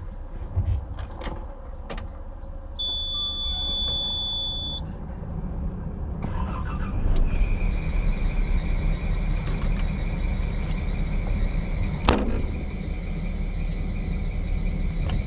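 Concrete mixer running with a steady low rumble; about seven seconds in a steady high-pitched whine sets in and holds. A high beep lasting about two seconds sounds about three seconds in, and a single sharp knock about twelve seconds in.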